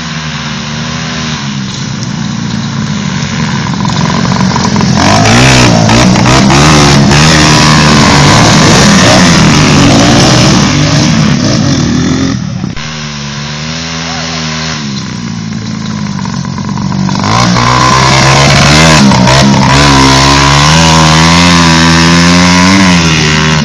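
Motocross bike engine running hard, its pitch rising and falling again and again with the throttle. It is loud from about four seconds in to about twelve, drops for a few seconds, then is loud again from about seventeen seconds.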